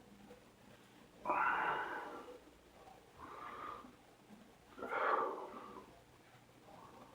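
A man belching three times after chugging a can of beer: two loud, drawn-out belches about a second in and about five seconds in, with a shorter, softer one between them.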